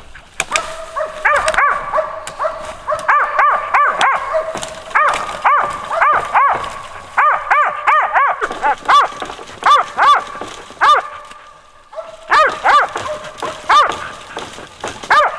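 Squirrel dogs barking treed in fast, steady runs of about three or four barks a second, with more than one voice overlapping. There is a short pause in the barking near the end.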